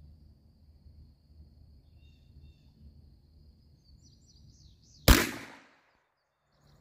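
One shot from a Rossi Circuit Judge, a .410 revolving carbine, firing a 3D-printed shot capsule about five seconds in, its report trailing off over about half a second. Before it, faint high chirps over a quiet outdoor background.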